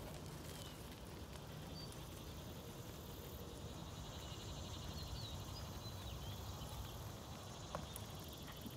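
Quiet outdoor ambience: a steady insect buzz with a few faint bird chirps.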